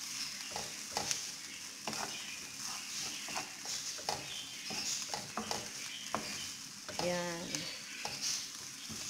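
Minced mutton and chopped onions sizzling in a non-stick frying pan while a wooden spatula stirs and scrapes through them, about two strokes a second, over a steady frying hiss. A brief pitched tone sounds about seven seconds in.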